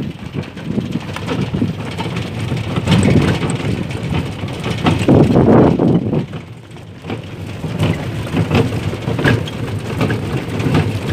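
Horse-drawn phaeton carriage in motion: a continuous rattling and clattering of the carriage and its wheels over the road, with irregular knocks throughout.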